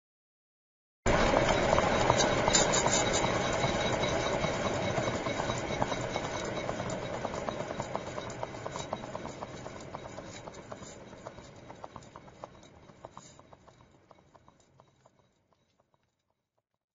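Car wheel spinning freely and coasting down: a whirring rush with ticks running through it starts suddenly about a second in, then fades gradually over about fifteen seconds until it dies away.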